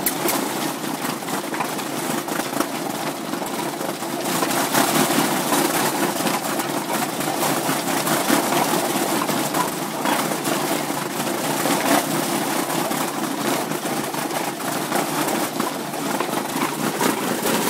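A dog mill (dog treadmill) running under a dog's fast strides: a steady rattling rumble with quick clicks.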